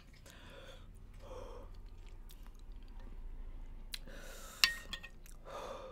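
A person breathing heavily and sighing three times while reacting to the burn of a very spicy sauce, with one sharp, briefly ringing clink of a metal spoon about four and a half seconds in.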